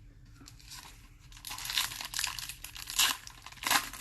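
Foil trading-card pack wrappers crinkling and tearing as packs are torn open by hand, in a run of crackles that grows louder about a second and a half in, with several sharp peaks.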